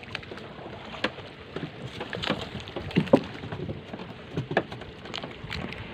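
Irregular taps and knocks, about one every second, over a steady wash of wind and water noise.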